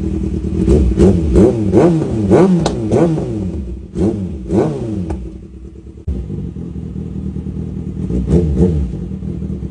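Kawasaki ZX-6R inline-four engine being revved with quick throttle blips in rapid succession, about two a second, for the first five seconds. It then settles to a steady idle, with two more quick blips near the end.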